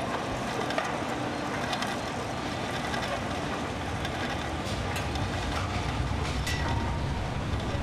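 Steady mechanical rumble and hiss of a commuter-rail station, with scattered sharp clicks and ticks. The low rumble swells toward the end.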